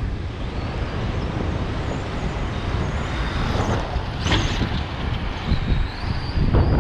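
Heavy wind buffeting the microphone, with the high whine of a brushless-motor RC car rising and falling as it accelerates and slows. The whine swells briefly about four seconds in.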